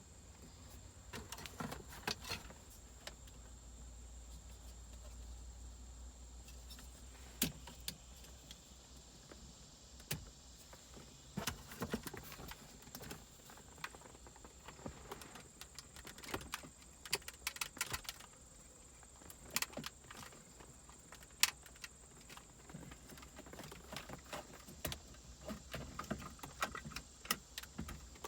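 Irregular clicks, taps and light rattles of plastic trim and wiring being handled while an aux cable is routed behind a car's dashboard and plugged into the radio, over a faint steady low hum.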